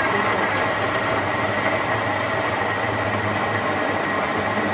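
Electric countertop blender running steadily, its motor grinding chopped ginger and garlic with oil, salt and milk into a smooth paste.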